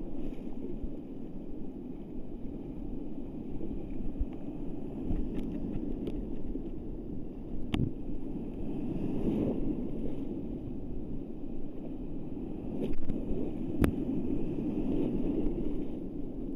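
Breaking surf and whitewater rushing and sloshing around a microphone held at water level, a steady churning noise with wind on the microphone. Two sharp clicks stand out over it.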